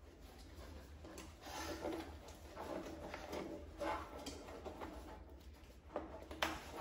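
Faint rustling and crinkling of a fabric surgical hood and its clear plastic film being handled and pressed onto a hood frame, with two sharp clicks near the end.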